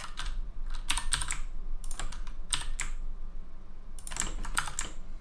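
Computer keyboard keystrokes clicking in short clusters of a few presses, spaced about a second apart.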